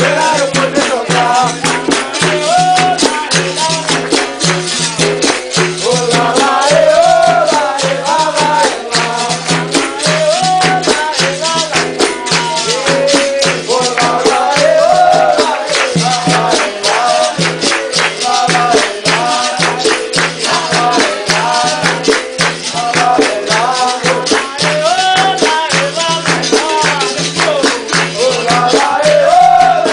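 Capoeira roda music: a berimbau with its caxixi shaker rattling, hand-clapping in a fast, steady rhythm, and a group of voices singing over it.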